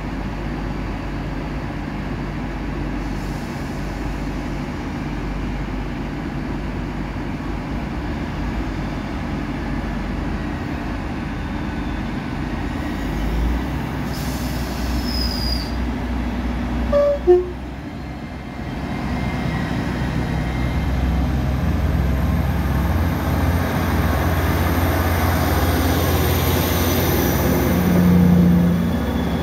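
Diesel trains running at a station platform, with a steady low engine rumble. About halfway through a train horn gives one brief toot. After that a train pulls past, its rumble growing louder with a rising whine.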